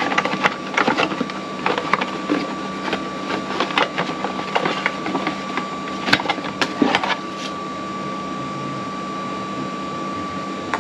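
Cardboard box flaps and paper rustling, with light clicks and knocks of plastic pump parts being handled as an outboard water pump kit is unpacked. The handling noises come mostly in the first seven seconds, over a steady hum with a thin high whine.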